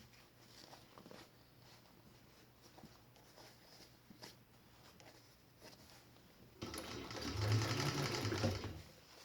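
Industrial sewing machine, an Eagle-made clone of the Juki 1342, running for about two seconds near the end as it stitches nylon webbing, after several seconds of faint clicks from handling the work.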